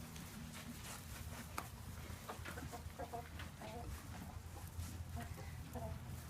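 Chickens clucking: a run of short clucks from about three seconds in, over a low steady background rumble.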